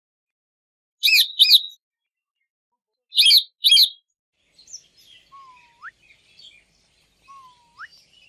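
Parrots giving short shrill screeches in pairs, twice, followed by faint twittering with two short upward-sliding whistles.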